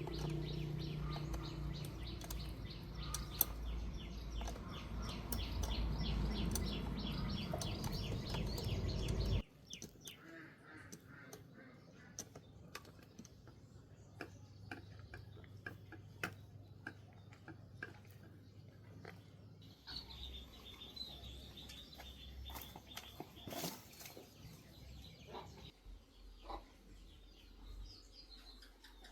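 An electric motor hums steadily with a fast, even ticking, then cuts off abruptly about nine seconds in. Afterwards small birds chirp, with scattered light clicks.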